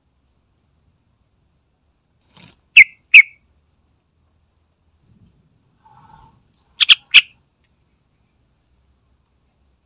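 Yellow-vented bulbul calling: short, sharp notes that drop quickly in pitch, two about three seconds in and a quick run of three near seven seconds, with silence between.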